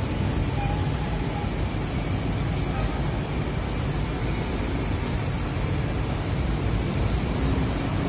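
Crawler crane's diesel engine running under load, a steady low rumble.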